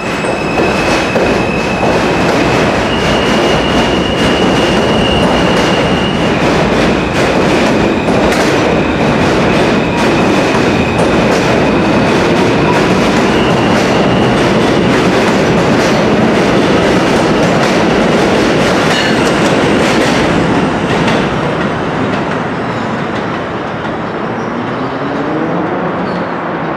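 R160 subway train pulling out of an elevated station, its cars rolling past with clickety-clack over the rail joints and a high steady whine that steps up in pitch. The noise fades about three quarters of the way through as the train moves off down the line.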